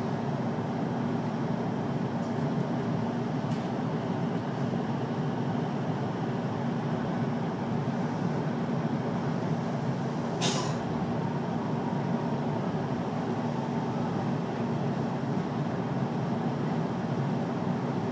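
Interior running noise of a JR Keiyo Line commuter train in motion: a steady rumble of wheels on rail heard inside the passenger car, with a single sharp click about ten seconds in.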